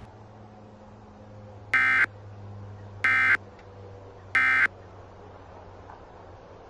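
Emergency Alert System SAME end-of-message data tones: three identical short buzzy digital bursts, each about a third of a second long and about a second apart, signalling the end of the alert.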